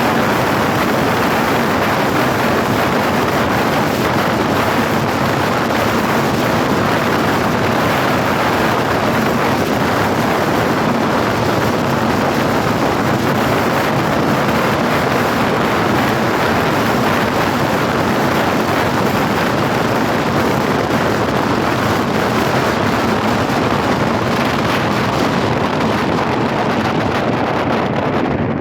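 Steady, loud rush of wind on the microphone mixed with road noise from travelling at speed along a highway.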